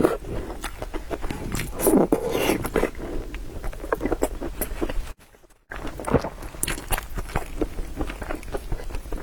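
A person eating noodles close to the microphone: wet chewing and slurping with many small clicks. The sound cuts out for about half a second a little past halfway.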